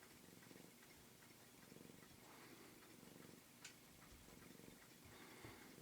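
Domestic cat purring faintly, the purr swelling and fading with each breath. There is a single small click a little past halfway.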